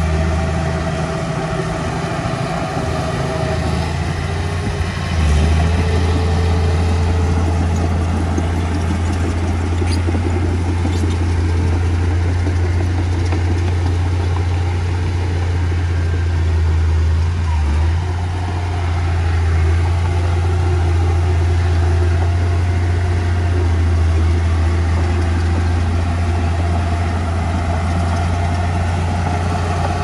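Heavy diesel engine of earthmoving machinery running steadily with a deep hum. The engine picks up about five seconds in and eases off briefly just after halfway, as it takes and sheds load.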